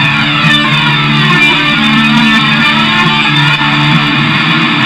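Progressive rock music with electric guitar playing over sustained low bass notes.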